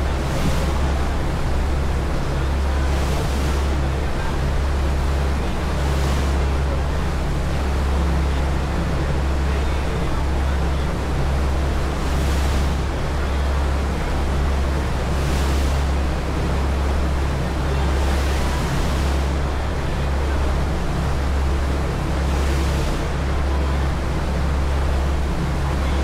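A passenger ferry's engines running under way with a steady low drone, under the rushing of the boat's wake and wind. A high hiss swells up briefly every few seconds.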